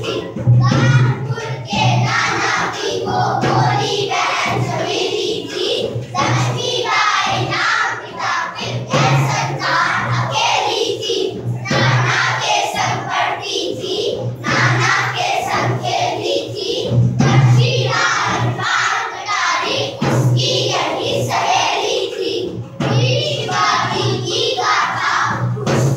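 A group of young children singing together over recorded music with a steady beat.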